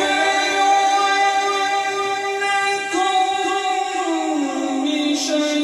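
A man reciting the Quran in a melodic, chanted style, holding long drawn-out notes on one breath. His pitch steps down about four seconds in.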